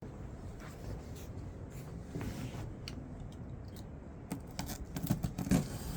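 Packaging being handled: scattered rustles, scrapes and small clicks over a low background hum, busier near the end.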